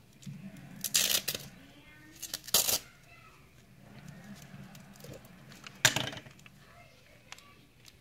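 Hands handling craft materials close to the microphone, making three short, loud rustling noises about a second in, at about two and a half seconds, and about six seconds in.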